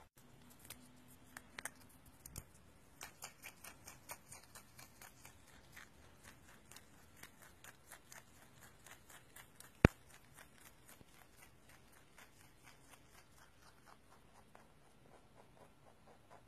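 Rabbit chewing leafy greens close up: a run of small crisp crunches, about three a second, louder in the first half and softer later. One sharp click, much louder than the chewing, stands out about ten seconds in.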